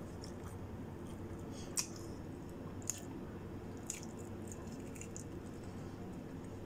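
Close-up eating sounds: a few short, wet mouth clicks about a second apart as food is bitten and chewed, over a steady low hum.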